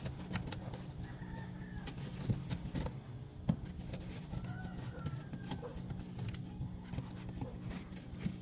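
Scattered clicks and knocks from hands handling washing machine drain parts during cleaning, over a steady low hum. A chicken clucks faintly a few times in the background.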